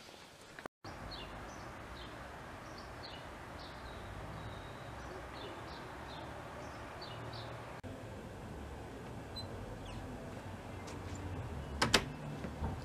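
Outdoor ambience with birds chirping: short, high chirps repeating over several seconds. Near the end, a couple of sharp clicks as a front door handle is worked.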